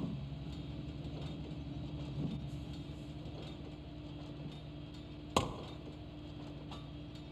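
Steel axe striking the trunk of a standing tree: a soft knock about two seconds in and one sharp chop a little after five seconds, over a steady low hum.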